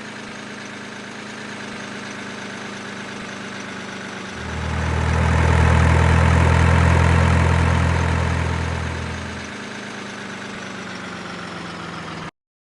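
Heavy vehicle's diesel engine running steadily, swelling much louder with a deep rumble for about five seconds in the middle, then easing back. The sound cuts off abruptly near the end.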